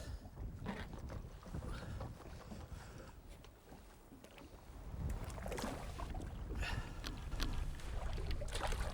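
Wind rumbling on the microphone in an open fishing boat, with faint scattered splashes and knocks of water and handling around the boat.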